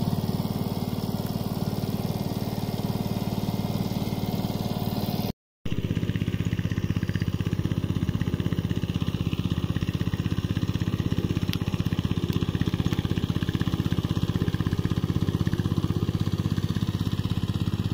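Power tiller's single-cylinder diesel engine running steadily with an even rapid pulse, cutting out for a split second about five seconds in.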